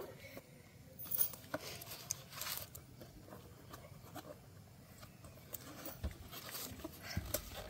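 Rustling and crinkling of the wrapped cardboard box of a fountain firework as hands handle it and pick at its wrapping, with scattered small scrapes and clicks.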